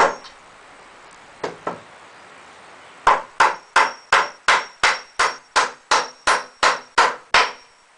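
Hammer driving nails into pallet wood to join a frame: a single strike, then two close together, then about a dozen quick, even blows at roughly three a second.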